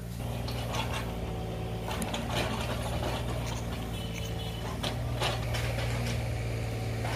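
Steady low mechanical hum of an idling train standing on the line, with scattered clicks and rustles close by.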